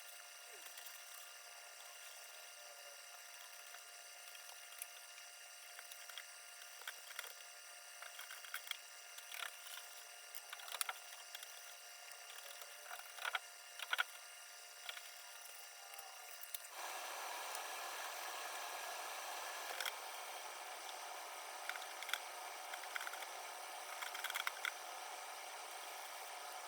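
Faint scattered clicks and knocks of things being handled. About two-thirds of the way in, a steady hiss starts and keeps going.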